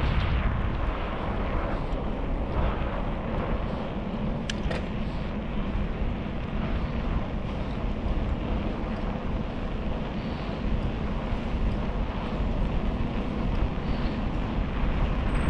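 Steady rushing wind on the microphone mixed with road noise while riding a bicycle, heaviest in the low rumble, with a single brief click about four and a half seconds in.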